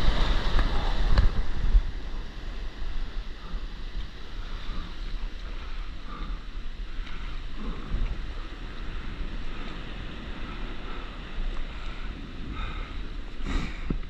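Broken surf rushing and foaming around a stand-up paddleboard as it is paddled out through whitewater, with wind buffeting the microphone. The rush is loudest in the first couple of seconds, then settles to a steadier wash, with a short splash near the end.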